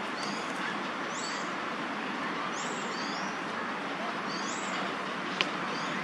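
Steady hum of city traffic with a bird's high, arching call repeated in pairs about every second and a half, and a single sharp click near the end.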